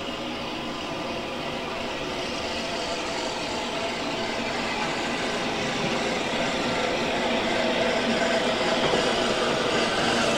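Maunsell S15 steam locomotive No. 847 and its carriages rolling slowly into the platform, the sound growing steadily louder as the train approaches.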